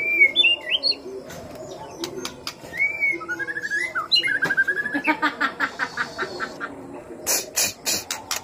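White-rumped shama (murai batu) singing: clear whistled phrases that glide up and down, a fast run of repeated notes about five seconds in, and sharp clicks and harsh notes near the end.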